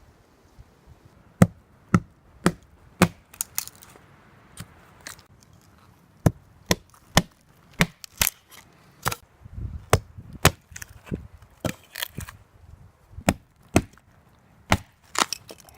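Hults Bruk hatchet being driven into a natural check in a piece of firewood to split it: a long run of sharp, irregular wooden knocks, roughly two a second.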